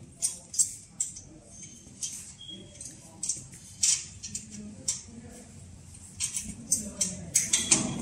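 Small metal parts being handled and fitted to a steel machine frame: scattered sharp clicks and clinks, with a quick run of them near the end.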